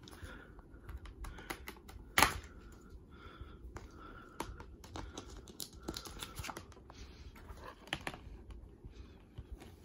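Plastic DVD and Blu-ray cases being handled, giving scattered light clicks and taps, with one sharper click about two seconds in.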